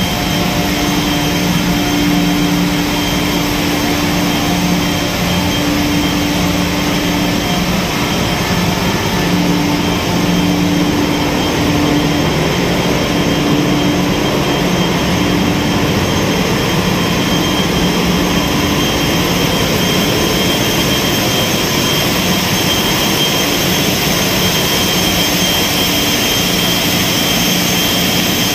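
Ship's engine-room machinery running: diesel engines, centrifugal oil purifiers and pumps together make a loud, steady noise, with a low hum and a thin high whine over it.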